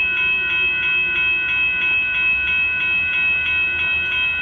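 Railroad crossing warning bell ringing in a fast, even, steady rhythm of about three dings a second while the crossing gates lift after the train has passed.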